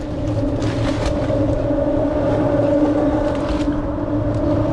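Steady engine drone, one even hum that holds its pitch throughout, with a few faint clicks.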